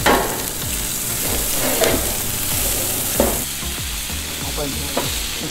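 Herb compound butter and a ribeye steak sizzling in a hot cast-iron skillet: a steady frying hiss with a few louder spits and crackles.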